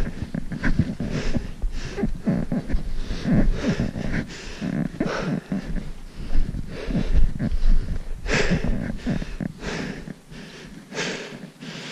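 A hiker's footsteps crunching in snow, about two steps a second, with loud breaths heard every second or so over them.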